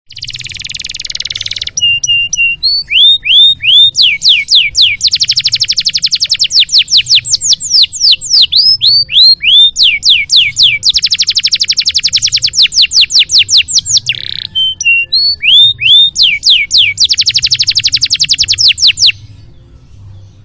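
Domestic canary singing: fast rolling trills alternating with repeated rising, swept whistled notes. It stops shortly before the end.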